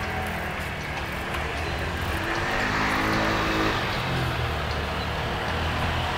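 A motor vehicle running close by, getting louder over the first three seconds and then staying steady.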